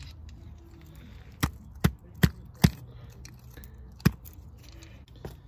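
Sharp metal-on-metal knocks under the car: four strikes a little under half a second apart, then one more about a second and a half later. A tool is being struck against a seized exhaust manifold bolt.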